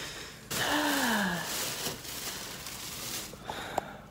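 A woman's breathy, disappointed sigh-groan, falling in pitch, starting about half a second in and lasting about a second, over the rustle of the phone's microphone against her clothing; a single click near the end.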